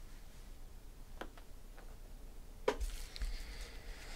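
A few faint clicks and taps from handling trading-card boxes and packs, with one sharper click about two and a half seconds in.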